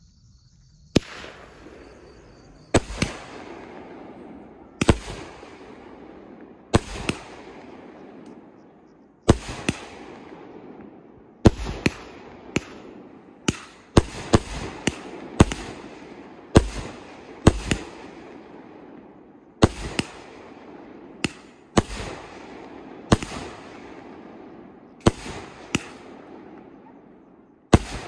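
Fireworks going off: about twenty sharp bangs at irregular intervals of one to two seconds, each trailing off in a fading tail.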